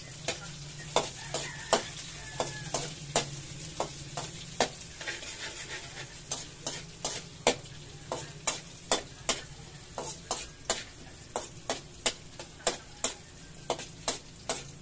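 Onions sautéing in hot oil in a kawali, sizzling steadily, while a spatula stirs them and clacks against the pan two or three times a second.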